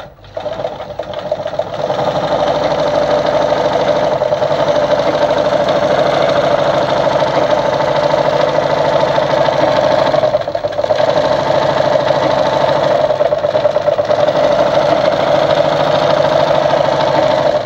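Brother Pacesetter ZU2-B605 sewing machine running steadily, sewing a zigzag stitch at width 5. It picks up speed over the first couple of seconds and slows briefly about ten seconds in.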